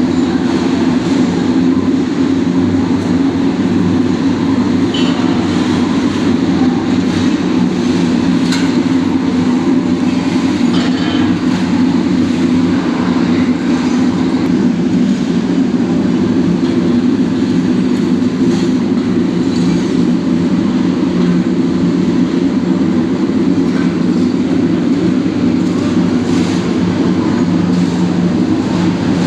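Aluminium-melting Sklenar furnace at work, giving a loud, steady, low rumble with a few faint clicks and knocks scattered through it.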